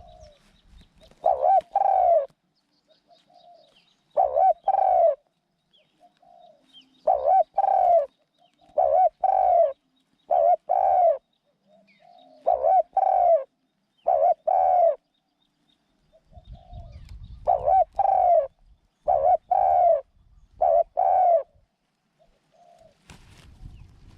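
Decoy dove cooing over and over: pairs of low coos every second or two, with softer short notes in between.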